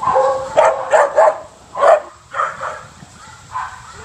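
Puppies yipping and barking in play: a string of short, high-pitched yips and barks, loudest in the first two seconds.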